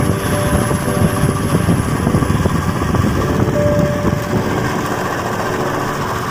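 Royal Enfield single-cylinder motorcycle engine running as the bike rides along, heard from the rider's seat as a steady, uneven low rumble.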